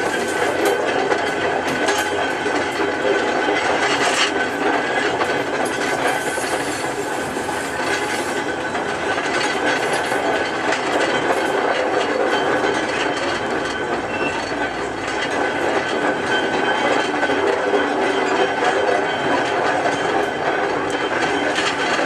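Short ballast train climbing a gradient, heard from on board: a loaded Dogfish ballast wagon's wheels clattering over rail joints with a steady high whine, over the running of the diesel locomotives working under load, the Clayton 0-4-0 hauling and the English Electric 0-6-0 banking.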